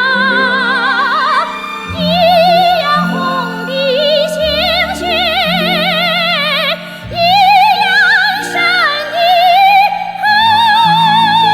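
Female voice singing long held notes with wide vibrato, in an operatic style, over a sustained instrumental accompaniment.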